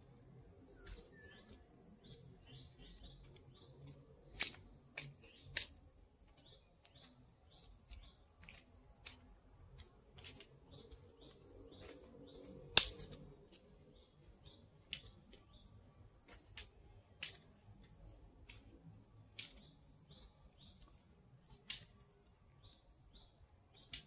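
Summer forest ambience: bird chirps and a scattering of sharp clicks over a steady high-pitched drone, with the loudest click about halfway through.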